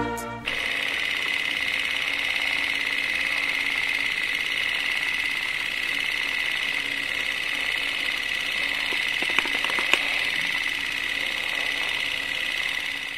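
Film-projector sound effect: a steady mechanical whirring that starts just after the song ends, with a few faint clicks about nine to ten seconds in.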